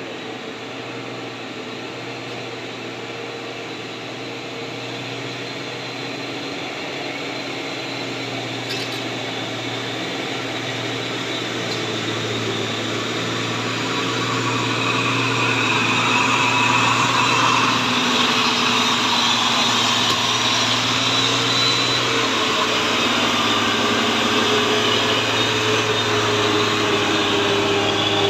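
Loaded Mitsubishi Fuso truck's diesel engine pulling hard up a steep grade, a steady low drone that grows steadily louder as the truck climbs toward and passes close by.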